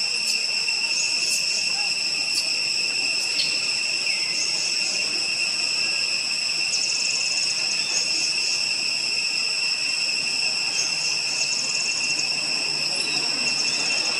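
Insects droning steadily at a high pitch, with a faster pulsing buzz that comes and goes and a few faint clicks.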